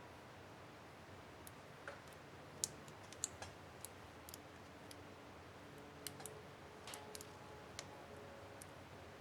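Small, sharp plastic clicks and ticks at irregular spacing, a dozen or so, the loudest two about two and a half and three seconds in. They come from a laptop space bar keycap and its clips being handled and fitted on an HP DV4 keyboard.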